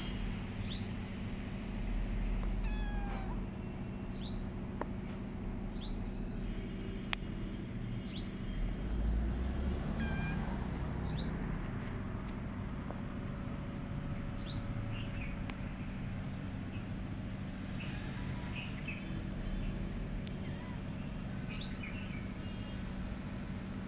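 Tiny kitten mewing a few times, high and thin, with short high bird chirps repeating every second or two over a steady low hum.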